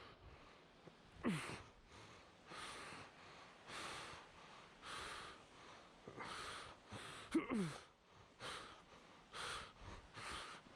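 A person breathing hard, puffing in and out about once a second, out of breath from climbing. Two short grunts fall in pitch, one about a second and a half in and one about seven and a half seconds in.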